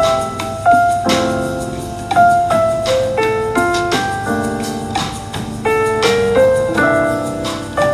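Background lounge jazz music on piano: a melody of single notes over chords.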